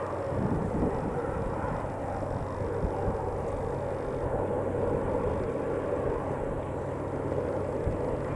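A Westland Sea King and a Westland Wessex HU5 helicopter flying past together at a distance, a steady drone of their turboshaft engines and rotors.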